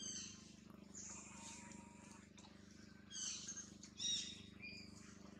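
Baby macaque giving short, high-pitched squealing cries several times, loudest about four seconds in, over a faint steady low hum.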